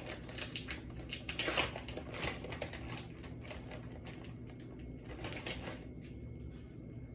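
Light crackling and clicking from hands handling sliced deli ham and the bread. It comes in two stretches, the first and louder one loudest about a second and a half in, the second about five seconds in.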